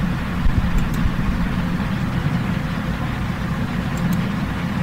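Steady low background rumble with a machine-like hum, with two faint ticks about a second in and near the end.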